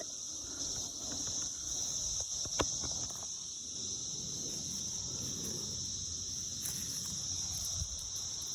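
Dense chorus of cicadas, a steady high-pitched drone, with one sharp click about two and a half seconds in.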